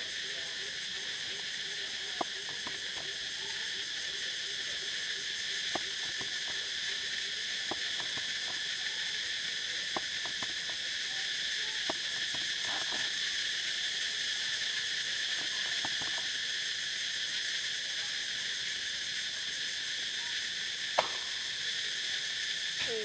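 Steady, high-pitched insect chorus, several bands holding level without a break. A few light clicks are scattered through it, with one sharper click near the end.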